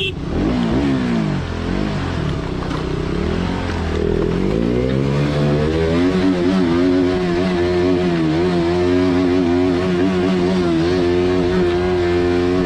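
Motorcycle engine revving, its pitch rising and dropping a few times, then held at a steady pitch for the rest of the time.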